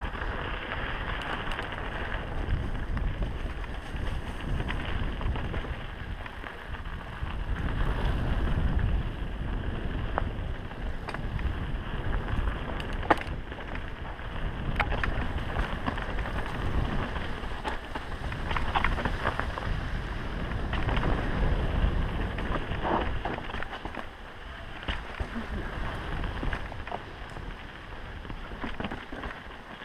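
Wind noise on the microphone and tyre rumble of a mountain bike descending a dirt singletrack, surging and easing with speed. Scattered sharp clicks and knocks come from the bike rattling over rocks and roots, with one loud knock about 13 seconds in.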